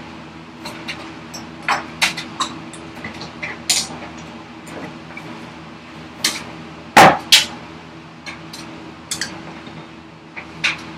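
Hand tools being picked up, set down and knocked against a wooden workbench while marking out a workpiece: scattered sharp clicks and knocks, the loudest a double knock about seven seconds in.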